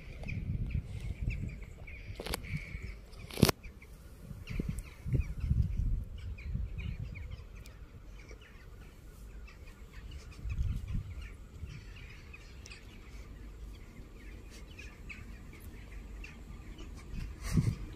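Small birds chirping over a gusty low rumble, with two sharp clicks in the first few seconds.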